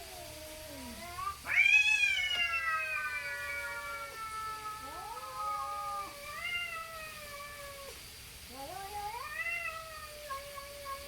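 Two domestic cats caterwauling at each other in a standoff before a fight: long, overlapping yowls that swoop up and then slowly sag in pitch. The loudest rises sharply about a second and a half in, and fresh rising yowls follow around the middle and near the end.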